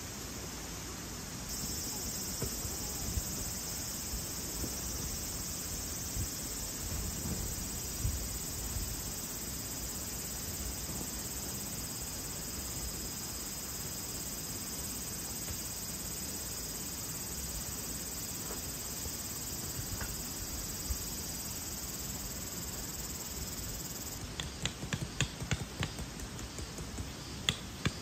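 Steady, high-pitched insect drone of a summer chorus, with a low rumble underneath. Near the end the drone drops away and a run of sharp clicks and taps takes over.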